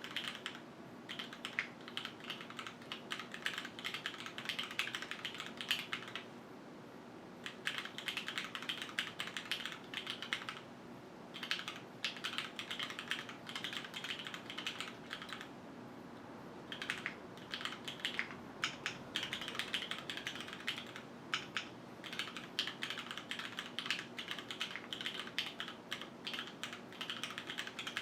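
Typing on a QwertyKeys Neo 65 mechanical keyboard with Cherry HyperGlide Black linear switches, an aluminium plate, JTK keycaps, a gasket mount and no foam. Keystrokes come in quick runs of clacks, broken by short pauses, over a faint steady hum.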